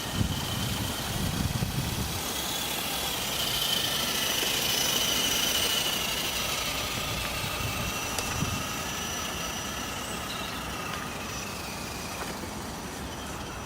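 Electric motor and gear drive of an RC 4x4 crawler jeep whining as it drives, the pitch rising to a peak about four to five seconds in and then easing off, with a few low knocks near the start.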